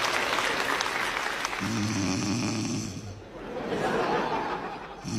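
A person snoring: a long, droning snore beginning about a second and a half in, followed by a breathy rush of air.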